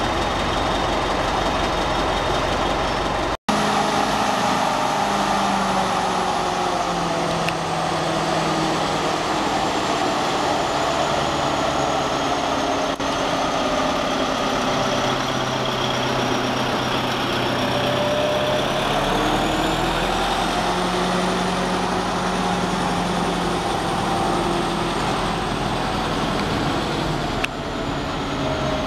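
Diesel engine of a narrow-gauge NDM-1 locomotive running, its pitch drifting up and down as the revs change, with a thin high whine that slides down and then back up.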